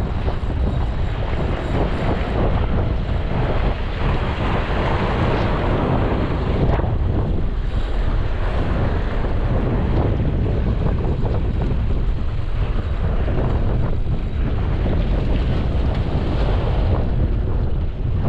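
Strong wind buffeting the microphone, with sea surf washing behind it.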